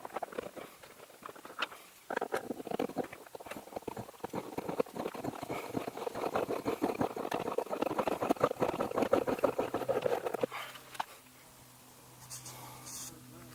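A self-drilling screw being turned by hand into a plastic license plate holder, crackling and clicking rapidly as it cuts its own hole. The clicking gets louder over several seconds, then stops suddenly.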